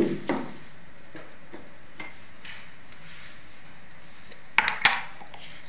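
Metal kitchen utensils clinking. There is a short clatter at the start and two sharp knocks close together about four and a half seconds in, over a steady low hiss.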